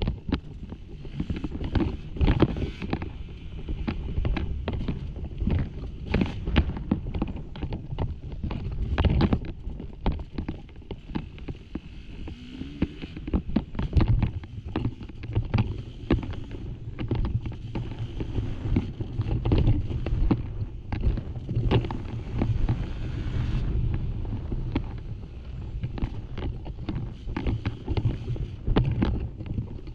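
Off-road dirt bike being ridden over loose, rocky trail: the engine runs under changing throttle, with frequent knocks and clatter from rocks striking the bike and its suspension working. From about the middle on, a steadier low engine drone sits under the knocks.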